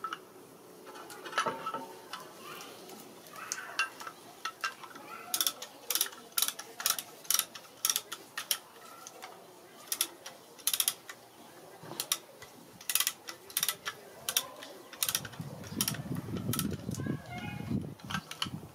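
Sharp metallic clicks and clinks of hand tools working on a car's front brake caliper, two or three a second, with a duller rubbing noise near the end.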